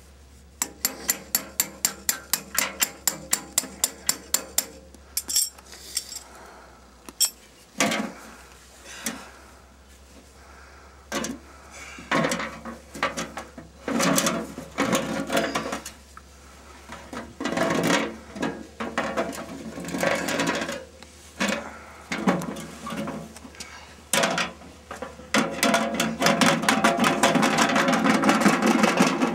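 Hand tools working on a sheet-metal furnace blower housing: a fast run of evenly spaced clicks, about four a second, for the first few seconds, then scattered metal knocks and clanks as the housing is handled and turned over, and a longer, louder rough noise near the end.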